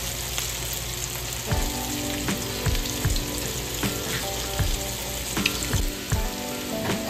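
Chicken shami kebabs shallow-frying in hot oil in a nonstick frying pan, a steady sizzle. Soft background music with a beat comes in about a second and a half in.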